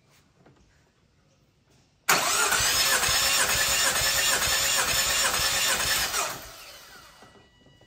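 Nissan X-Trail T30's QR25DE four-cylinder engine cranked on the starter for a dry compression test, with the spark plugs out, the fuel pump fuse pulled and a compression gauge in cylinder 2's plug hole. A rhythmic cranking whir starts suddenly about two seconds in, runs about four seconds, then winds down.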